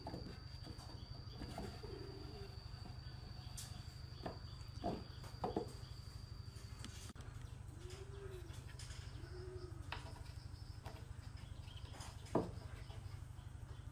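A few light wooden knocks and taps as the curved wooden door of a bread box is slid and the box handled, the sharpest near the end. Two soft dove coos come about eight and nine and a half seconds in, over a steady low hum and a thin high whine that stops about halfway through.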